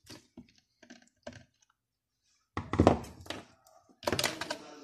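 Small clicks of a screwdriver turning a screw out of a steam iron's plastic housing, then two louder knocks and rattles, about two and a half seconds in and near the end, as the plastic parts are handled on the workbench.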